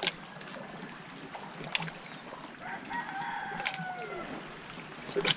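A rooster crowing once, about two and a half seconds in, over a few sharp clicks.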